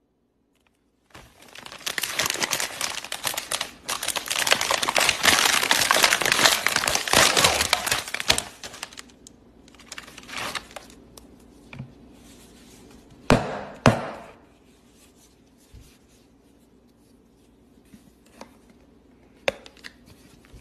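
Packaging being crinkled and handled at close range, a dense crinkling for several seconds that thins out into scattered crackles. Past the middle come two sharp snaps about half a second apart, and a few light clicks near the end.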